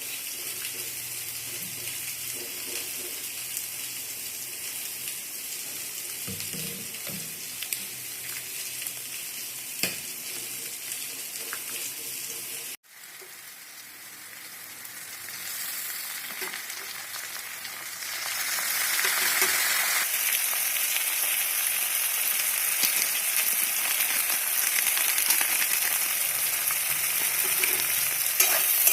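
Food sizzling as it fries in a hot pan, stirred, with a few sharp taps of the utensil. The sound cuts out abruptly about halfway through, then returns and grows louder and brighter.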